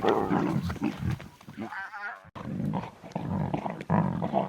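Lion cubs growling and snarling as they fight over a scrap of meat, with a higher-pitched drawn-out cry about two seconds in.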